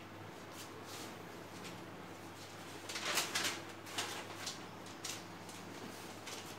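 Chalk writing on a blackboard: a series of short scratchy strokes, busiest from about three to five seconds in, over a faint steady hum.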